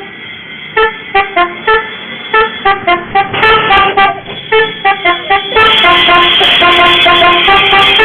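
Multi-tone 'telolet' bus horn playing a tune: a run of short honked notes, then louder held notes that overlap from about halfway through.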